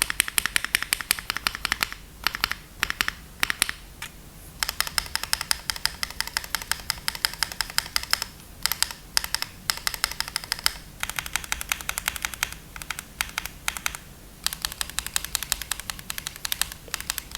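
Fast typing on a QK Neo80 mechanical keyboard with lubed Cherry Hyperglide Black linear switches on an aluminium plate with no foam, giving a clacky sound. Rapid keystrokes come in runs broken by brief pauses.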